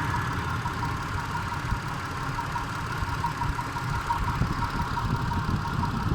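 Mitsubishi Pajero IV's 3.8-litre V6 petrol engine running, with a regular knock through it whose cause the owner cannot identify.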